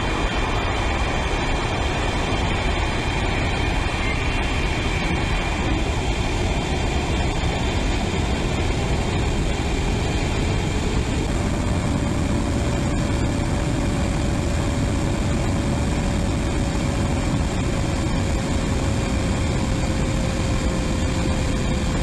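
Steady roar of jet engines and rushing air heard from inside an airliner cabin during final approach and landing. About halfway through, a faint whine comes in and slowly sinks a little in pitch.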